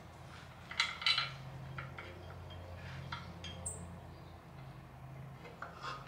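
Light metal clinks and taps as a clutch pressure plate and disc are handled and set against the flywheel, with a cluster about a second in and more near the end.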